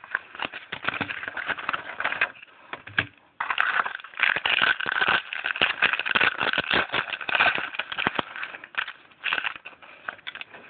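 Football trading cards being handled and shuffled by hand: a dense crackling, papery rustle that gets much louder about three and a half seconds in and eases off near the end.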